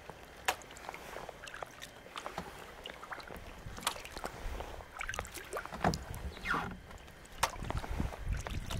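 Kayak paddle strokes: irregular splashes and drips of water off the blades, louder in the last second or so.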